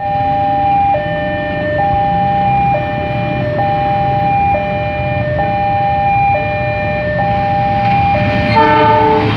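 Electronic railway level-crossing warning alarm sounding as a train approaches, switching evenly between a higher and a lower tone, each held just under a second. A brief, differently pitched tone cuts in near the end.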